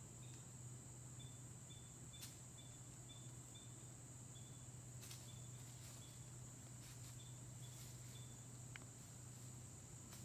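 Faint insect chorus in woodland: a steady high drone with runs of short, high chirps every half second or so, and a few faint clicks.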